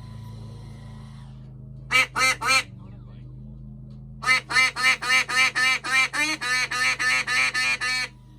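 Duck quacking: three quick quacks about two seconds in, then a long run of rapid quacks, about four a second, that stops abruptly near the end. A steady low hum underneath.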